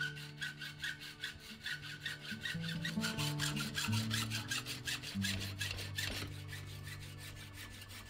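Hacksaw cutting through a mountain-bike fork's aluminium steerer tube, held in a saw guide in a bench vise: metal-on-metal sawing strokes under background music.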